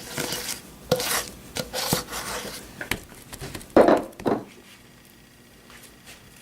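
Kitchen utensils scraping, rubbing and knocking against a bowl and board while cake ingredients are prepared, with the loudest knock about four seconds in.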